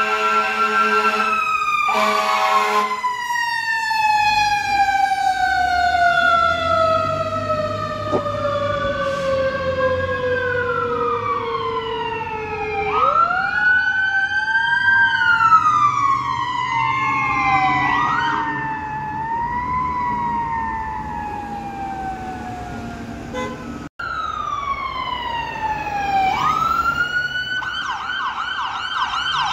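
Emergency vehicle sirens: an air horn blast, then a Federal Q mechanical siren winding down in a long, slowly falling whine, overlapped by the rising and falling wails of electronic sirens from other units. Near the end an ambulance's electronic siren switches to a fast yelp, with truck engines running underneath.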